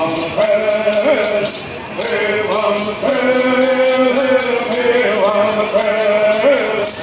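A group of men singing a traditional Southern California Bird Song in unison, the melody holding long notes and sliding between them, over the steady shaking of gourd rattles at about four shakes a second.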